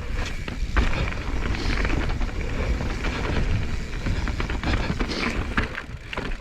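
Mountain bike rolling over rough, rocky dirt trail, with a scattering of sharp clicks and rattles from the bike over the bumps and a steady rumble of wind on the microphone.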